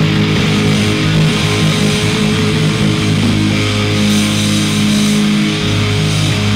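Live rock band playing loud, with electric guitars, bass and drums; the guitars hold long sustained chords that change a few times.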